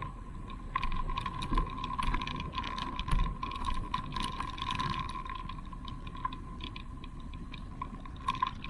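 Light, irregular clicking and ticking, busiest in the first half, over a steady high-pitched tone.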